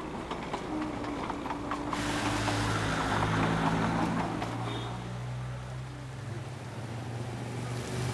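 Darjeeling Himalayan Railway diesel toy train rolling past for about two seconds. Then rain hisses steadily on a street, with a motor vehicle's engine running underneath.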